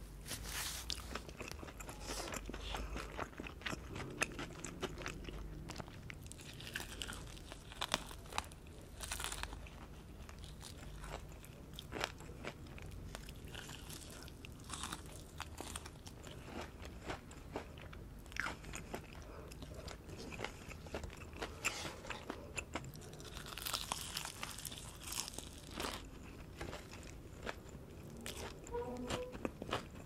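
Close-miked biting, crunching and chewing of crispy breaded fried chicken, with many sharp crunches of the coating scattered through the chewing.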